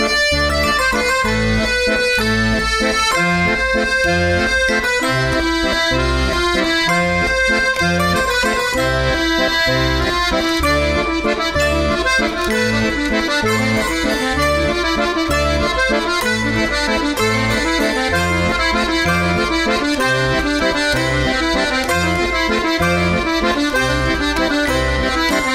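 Background music led by an accordion, over a steady beat.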